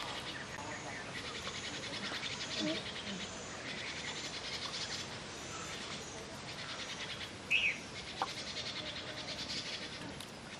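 Insects trilling in repeated short bursts of fast, high pulses, with a single bird chirp about two-thirds of the way through.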